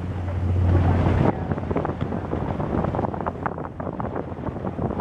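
Wind buffeting the microphone in gusts, over a steady low rumble that cuts off abruptly about a second in.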